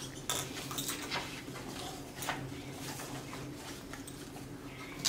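Light, scattered clicks and taps of small token discs being handed over and set down on the children's token boards and the tabletop, over a steady low room hum.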